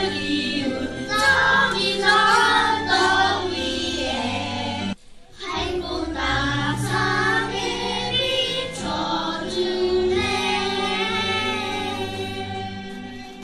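A chorus of children and adults singing a musical-theatre song over an instrumental accompaniment with a steady bass line; the sound cuts out briefly about five seconds in, then the singing resumes.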